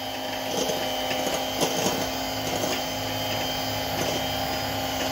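Handheld electric mixer running steadily, its beaters whisking a thin egg, sugar, oil and milk cake batter in a plastic bowl, with a few light clicks.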